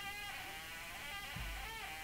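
Free-improvised wind instrument playing a held high note with many overtones that wavers slightly in pitch, sounding siren-like. A low thump comes about one and a half seconds in.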